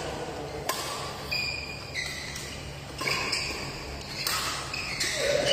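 Badminton rally: sharp racket strikes on the shuttlecock about once a second, with short high squeaks of shoes on the court mat between them, over the hum of a large hall.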